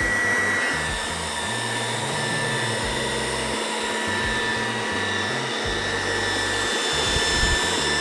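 Trifo Lucy robot vacuum running on carpet: a steady motor whir with a constant high whine.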